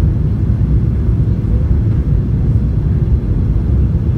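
Steady low rumble inside the cabin of a Boeing 737-900 on final approach: its CFM56 jet engines and the rushing airflow, heard from a window seat by the wing.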